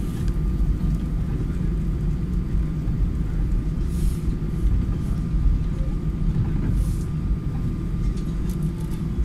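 Steady cabin rumble of a jet airliner moving on the ground, its engines running and its wheels rolling, with a faint steady whine over it. Two short hisses come about 4 and 7 seconds in.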